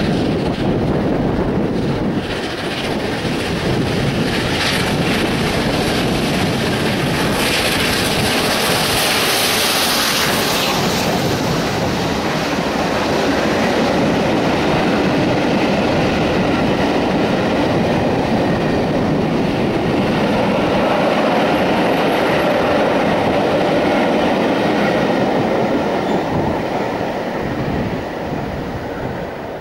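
LNER A4 Pacific 4464 Bittern, a three-cylinder steam locomotive, working hard as it accelerates a train past, with its exhaust and steam loudest as the engine goes by about a third of the way in. The coaches follow with a steady run of wheel noise and clickety-clack over the rail joints, fading near the end.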